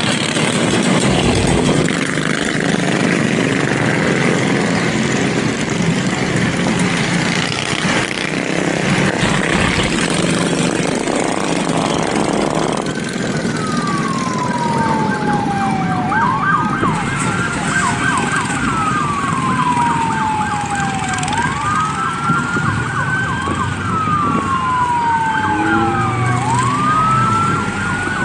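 Loud engine noise, then about 13 seconds in an emergency-vehicle siren starts and keeps wailing, its pitch sweeping slowly down and back up with quicker sweeps laid over it.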